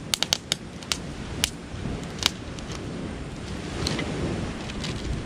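Wood campfire crackling: irregular sharp pops, several in quick succession in the first second and a half and fewer after, over the low rumble of the burning fire.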